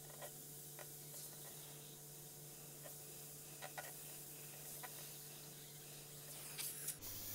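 Faint steady hiss of a gravity-feed Iwata airbrush spraying paint with the air held on, with a low steady hum underneath and a few light clicks.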